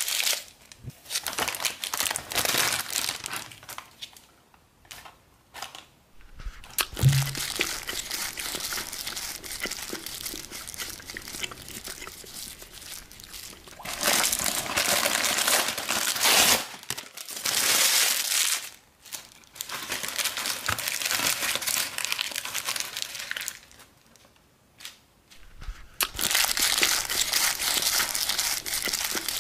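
Thin white paper wrapping being crumpled and torn by hand, in bursts of crinkling with short pauses between. A soft thump about seven seconds in.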